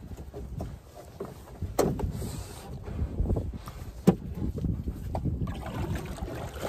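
Canoe being paddled: paddle strokes splashing and pulling through water. Two sharp knocks stand out, the louder about four seconds in.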